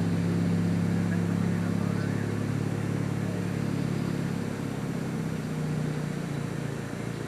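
A steady low engine hum, easing slightly toward the end.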